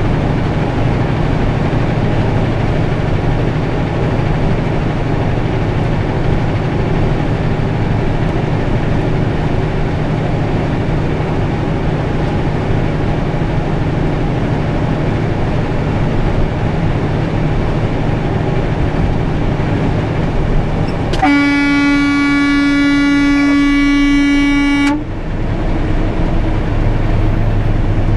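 Steady engine and road noise inside a truck cab at highway speed. Past the middle, a vehicle horn sounds one steady, loud note for about three and a half seconds, then cuts off suddenly.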